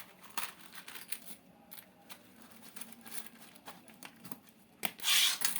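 Light clicks and taps of a laptop and small tools being handled, with a brief louder scraping rustle about five seconds in.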